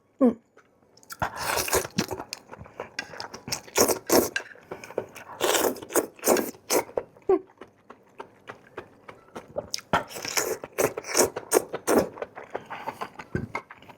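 A person eating close to the microphone: crunching and chewing bites of food in spells of quick, irregular crunches, with short pauses between them.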